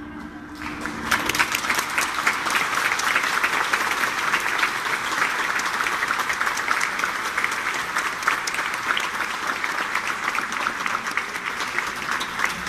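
Audience applauding, breaking into dense, steady clapping about a second in as the last held notes of the music die away.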